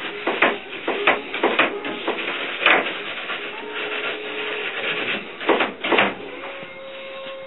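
Hand-held wax brush scrubbed quickly along a waxed cross-country ski base, clearing the last leftover wax from the running surface. A run of quick scratchy strokes, a quieter lull, then two hard strokes about six seconds in before the brushing stops.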